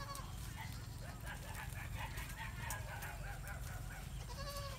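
Short clucking calls, like farmyard fowl, repeat throughout over a steady low rumble. A goat bleats once near the end.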